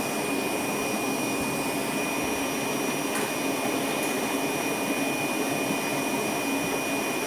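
Steady machine whir with a thin, constant high whine, even in level throughout.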